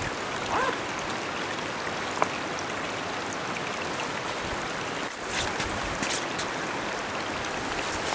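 Steady rush of a shallow, fast-running river flowing over riffles, with one sharp click about two seconds in.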